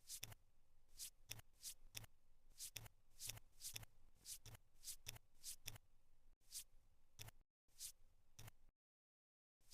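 Cardboard jigsaw puzzle pieces being handled and fitted: faint, irregular clicks and taps, a few a second. The sound cuts to dead silence for about a second near the end.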